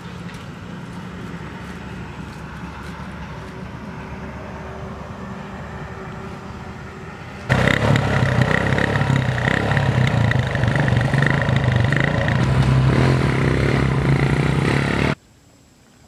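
Small step-through motorcycle engine running steadily. About seven and a half seconds in it jumps abruptly much louder, as if heard right at the exhaust, and about fifteen seconds in it cuts off suddenly.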